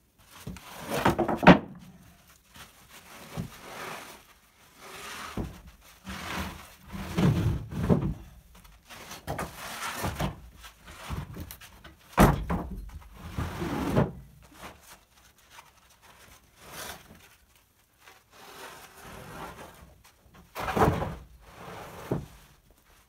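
Rough-sawn wooden boards being handled and stacked: repeated thunks and clatters as boards are set down on the pile, with scraping as they slide along each other. The loudest knocks come about a second and a half in, around twelve seconds in, and near the end.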